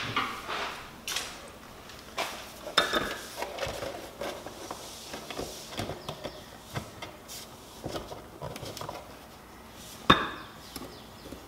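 Irregular knocks, taps and light clinks of a hand tool and parts being handled while an RV tail light is taken off its mounting. The sharpest knocks come at the start, about a second in, between two and three seconds in, and the loudest about ten seconds in.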